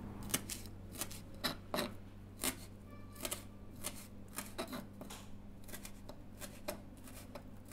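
A series of small, irregularly spaced clicks and taps over a steady low hum, with a brief faint ring after one of them about three seconds in.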